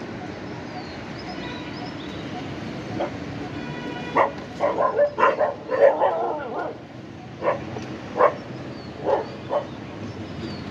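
Street dogs barking: a quick flurry of barks starting about four seconds in, then single barks roughly once a second, over steady street traffic noise.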